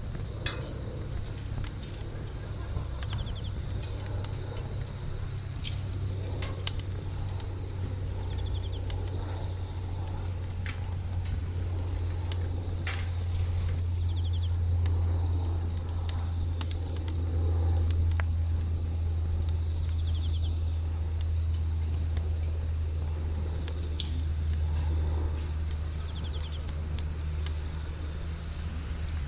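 Wood campfire crackling, with scattered sharp pops, over a steady high chorus of crickets or similar insects. A steady low rumble runs underneath and swells for a few seconds near the middle.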